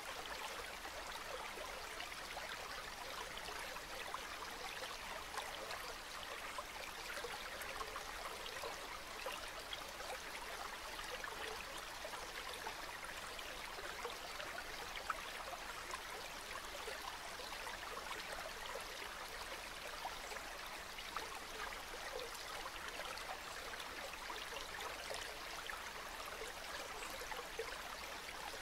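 River water flowing steadily, a continuous babble with fine trickles and small splashes, with one slightly louder splash about halfway.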